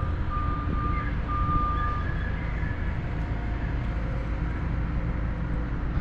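Heavy construction machinery running with a steady low rumble, and a backup alarm giving a few long beeps in the first two seconds.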